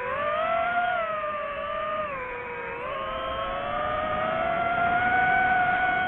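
DJI FPV drone's motors and propellers whining, the pitch swinging up and down with the throttle: rising about a second in, dipping briefly, then climbing and holding higher toward the end.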